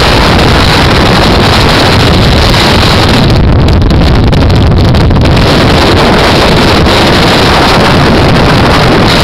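Wind rushing over the microphone of a camera in a moving car, a loud, steady rumbling rush.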